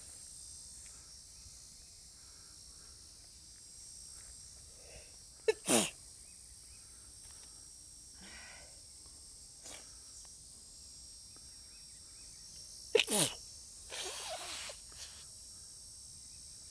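A person sneezing twice, about five seconds in and again about thirteen seconds in. Each sneeze is a sharp burst with a quick catch just before it. A shorter, rougher sound follows the second one.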